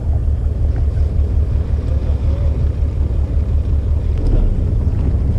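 Steady low rumble aboard a fishing boat at sea, with wind buffeting the microphone.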